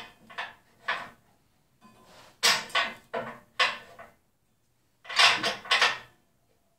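Short metallic clatters and scrapes of metal lathe parts and turning tools being handled while the lathe is stopped. They come in three groups, with quiet gaps between.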